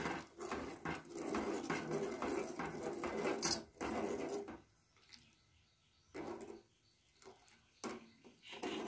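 Steel ladle stirring rice and milk for kheer, scraping around a metal pan: a continuous rubbing scrape for about four and a half seconds, then a few short strokes.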